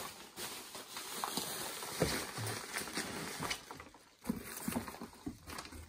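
Plastic bubble wrap and cardboard packaging rustling and crinkling as hands move them about, in irregular scratchy bouts.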